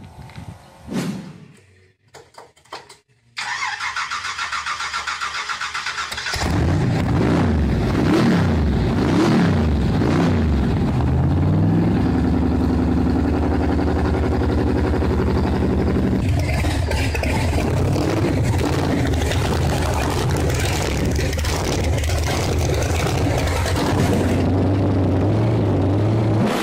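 A big modified hot-rod engine is cranked over by the starter for about three seconds, then catches and is revved in several quick blips. It then settles into a loud, steady run.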